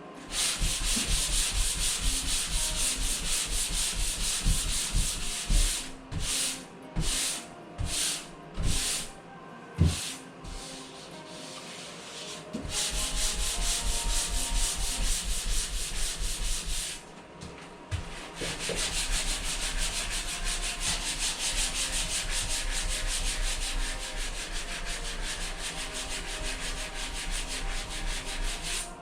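Sanding dried drywall joint compound, a steady scratchy hiss. About six seconds in it breaks into a handful of short separate strokes, then settles back into continuous sanding with a brief pause a little past the middle.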